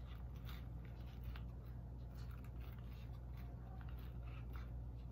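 Quiet room tone: a steady low hum with faint, scattered light clicks.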